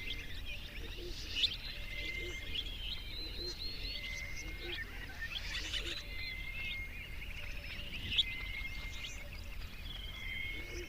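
Several birds chirping and calling together in a busy chorus of short chirps, trills and thin whistled notes, over a steady low rumble.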